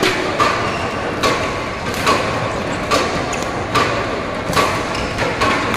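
Badminton rackets hitting a shuttlecock in a rally: about seven sharp hits, evenly spaced a little under a second apart, each with a brief ring, over the steady noise of a sports hall.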